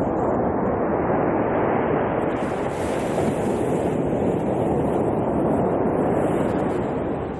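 Sea waves breaking onto a pebble beach: a continuous rush of surf that thickens as new waves crash through the middle.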